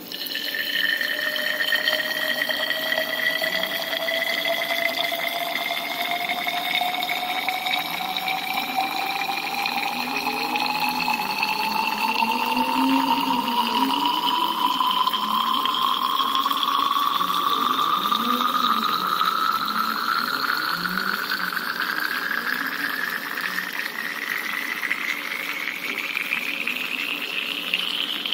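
Water pouring into a tall glass measuring cylinder: a splashing noise carrying a clear resonant tone that rises steadily in pitch, climbing faster near the end, with fainter overtones rising alongside. The pitch rises because the air column above the water gets shorter as the cylinder fills, and the overtones are its odd harmonics.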